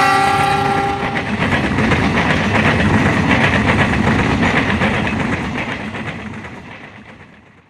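Passenger train hauled by a diesel locomotive passing at speed. The locomotive's multi-tone horn sounds and stops about a second in, then the carriages rumble and clatter past over the rail joints, fading away near the end.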